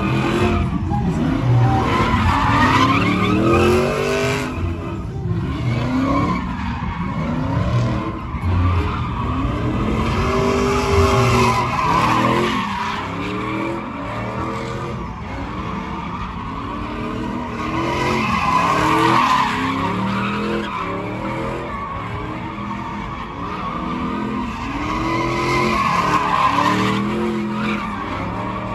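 Pickup truck doing donuts: its engine revs up and down over and over while the rear tires squeal against the pavement, the squeal swelling several times.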